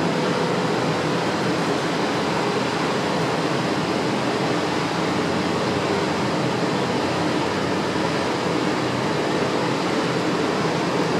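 Steady hum and hiss of a Berlin U-Bahn small-profile train standing at the platform with its doors closed, its on-board equipment running, with a faint steady tone through it.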